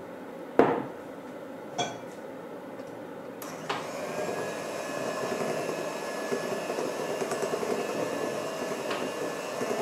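Two short clinks of glass bowls, then an electric hand mixer starts about three and a half seconds in and runs steadily with a thin whine, beating a cocoa-flour mixture into creamed butter batter.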